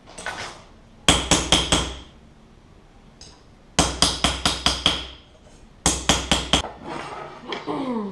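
Hammer striking steel sheet in three quick runs of sharp, ringing metallic blows, a handful of strikes each, with short pauses between the runs.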